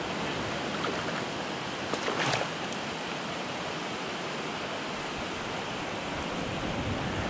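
Steady wash of shallow surf around the angler, with a brief louder noise about two seconds in.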